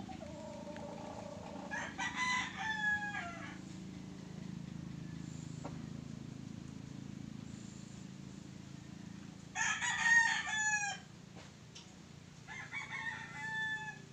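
A rooster crowing three times, each crow about a second and a half long and falling in pitch at its end, the middle one the loudest, over a low steady hum.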